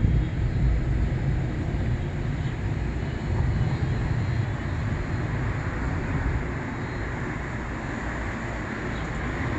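Wind buffeting the microphone over a steady rumble of city traffic, with no distinct events.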